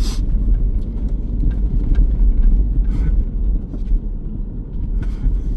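Subaru on all-terrain tires driving over snow-covered ice, heard inside the cabin: a steady low rumble of tyres and engine, with a few light clicks scattered through it.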